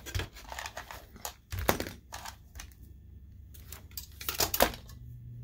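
Small clicks and knocks of a screwdriver and a metal-guarded fan on its sheet-metal bracket being handled and fitted. The sharpest clicks come about a second and a half in and again near the end.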